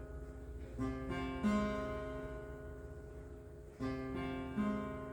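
Acoustic guitar playing slow chords, struck in two pairs, each chord left to ring and fade.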